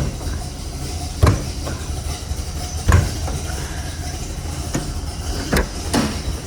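1970 Pontiac GTO's 455 V8 idling with a steady low rumble, with a few sharp knocks scattered through it.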